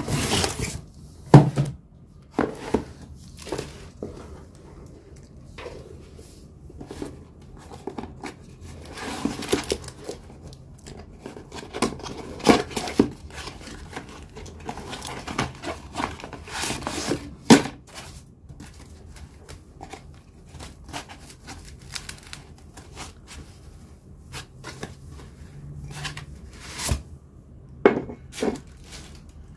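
Small cardboard boxes being opened by hand: flaps pulled and creased, with paper packing crinkling and tearing. Irregular sharp knocks and taps of cardboard and ceramic dishware against a wooden floor run through it.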